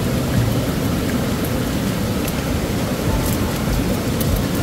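Steady rush of a fast-flowing mountain river: an even noise with a low rumble underneath.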